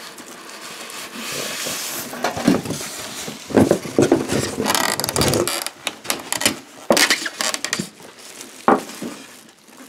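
Unboxing a toaster oven: its plastic wrap rustles and its styrofoam end caps scrape against the cardboard box as it is lifted out. Rustling comes first, then a run of knocks and clunks in the middle and one sharp knock near the end.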